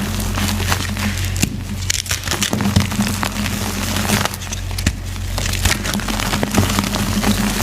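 Reformed gym chalk being crushed and crumbled: a dense, steady run of small cracks and crackles, over a low steady hum.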